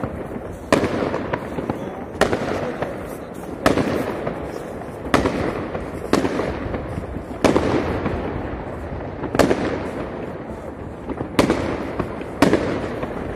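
Fireworks going off: about nine sharp bangs, one every second or two, each trailing off in a long echo, over a steady background of crackling and rumbling from other fireworks.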